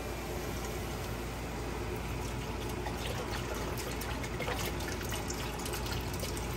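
Beef stock pouring in a steady stream from a carton into a Dutch oven.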